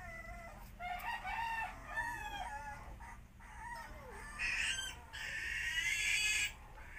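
High-pitched animal calls: a few short calls in the first couple of seconds, then one longer call of about two seconds that stops sharply near the end.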